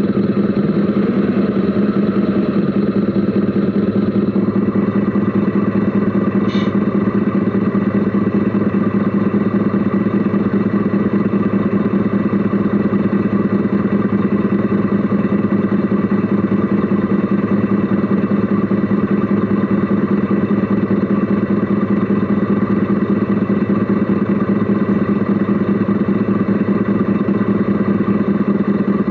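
Steady engine-like running sound of a radio-controlled Mercedes Actros SLT model truck, heard from inside its cab. There is a brief high chirp about six seconds in.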